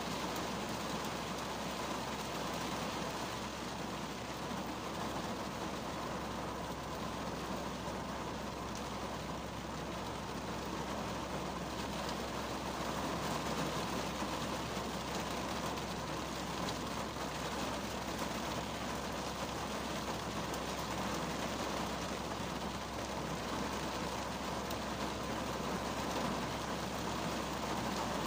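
Rain falling on the roof and windshield of a 2010 Kia Cerato, heard from inside the cabin as a steady, even hiss.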